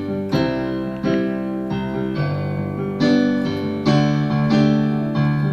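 Piano accompaniment: chords struck about twice a second, each ringing on into the next, under a musical improv scene.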